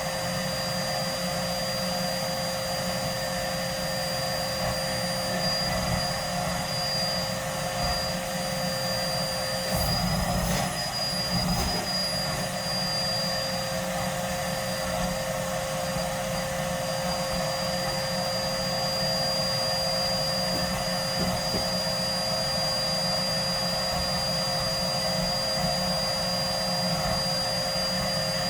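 Hetty vacuum cleaner motor running steadily with a high, even whine. About ten seconds in, the pitch wavers briefly and there are a couple of low thumps.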